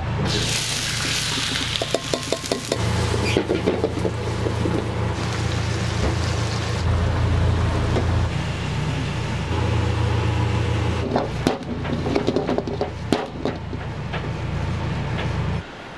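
Restaurant kitchen cooking: metal pans clanking on the stove as they are tossed, with sizzling over a steady low roar. A loud burst of sizzling comes about half a second in.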